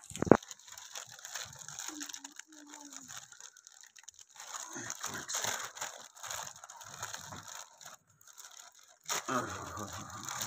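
Plastic courier mailer bag being torn open and crinkled by hand, a sharp click near the start.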